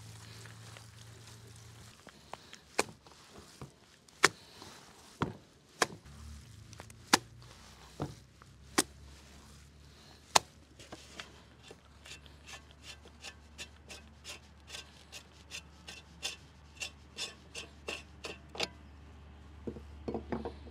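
Sharp clicks and taps of a thin wooden stick picking and scraping at the perforated metal plate of a meat grinder. The clicks come singly and irregularly at first, then settle into a steady run of about two a second.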